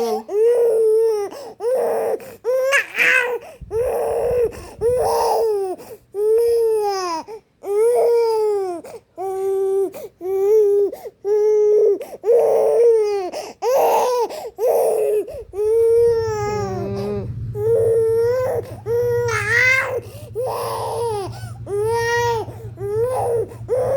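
Small child crying hard in short, repeated wails, about one a second, while sick with a cold and cough. A steady low hum comes in under the crying about two-thirds of the way through.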